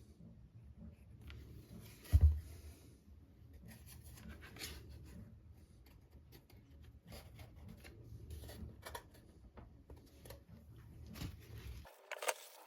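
Small handling sounds on a workbench: scattered light clicks, taps and scrapes, with one heavy thump about two seconds in and another sharp knock near the end.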